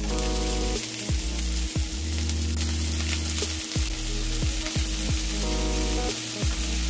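Pan-fried dumplings sizzling in oil in a hot frying pan, a steady frying hiss.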